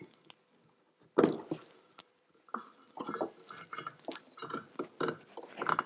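Handling sounds of a snowmobile drive belt being fitted onto the clutch pulleys: irregular knocks and light metallic clinks. The loudest comes about a second in, followed by a run of smaller taps.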